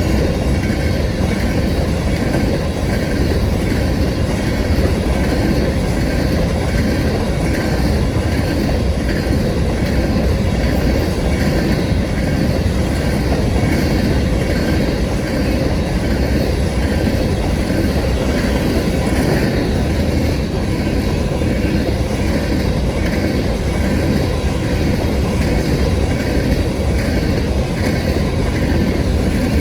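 Empty grain hopper cars of a northbound freight train rolling past at speed: a steady, loud noise of steel wheels on rail.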